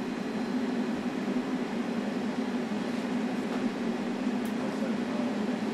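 Ventilation blower running steadily, a constant low hum under a rush of air.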